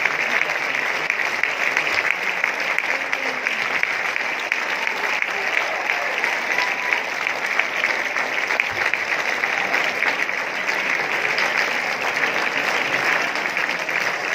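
A packed theatre audience of about 2,500 applauding in a long ovation: dense, steady clapping with no break.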